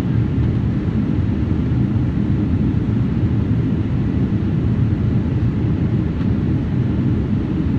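Steady low rumble of a jet airliner in flight, engines and airflow heard from inside the passenger cabin.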